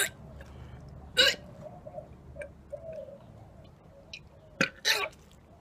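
A man gagging while trying to swallow raw fish: one sharp gag about a second in, then two more in quick succession near the end, with faint throaty sounds between.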